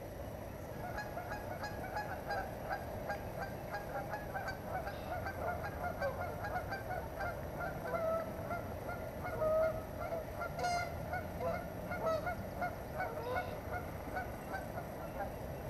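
A flock of waterfowl calling: a continual run of short, repeated calls.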